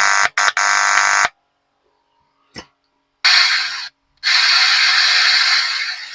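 Repaired Ahuja DP-475 power amplifier driving its loudspeaker loudly: harsh buzzing tones in short bursts that cut off abruptly, then after a pause and a single click, a loud hissy rush with a brief break. The output is back to full loudness after an overheated resistor that had drifted in value was replaced.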